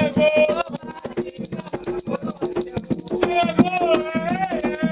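Umbanda ritual chant (ponto) sung over fast, steady percussion with shaken rattles. The singing pauses about a second in and comes back around three seconds in, while the percussion keeps going.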